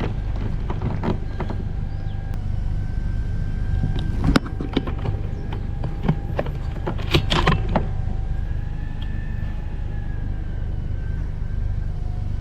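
Steady low rumble of a vehicle idling, with a few short clicks and knocks from handling.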